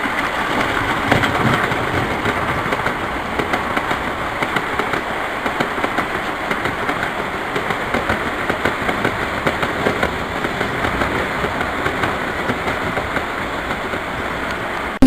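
O gauge three-rail model train running on its track: a steady rumble of wheels and motor with many small, quick clicks running through it.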